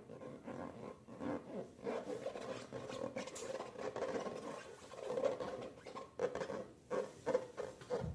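Slime being squished and kneaded by hand, making an irregular string of squelches and sticky crackles, busier and louder in the second half.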